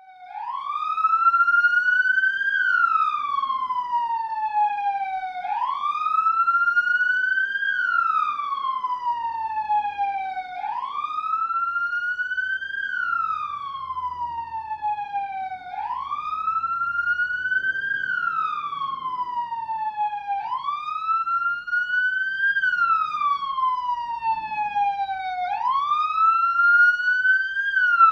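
Police car siren on its slow wail, rising and falling about every five seconds: each sweep climbs over about two and a half seconds and slides back down a little more slowly, about five full cycles in all.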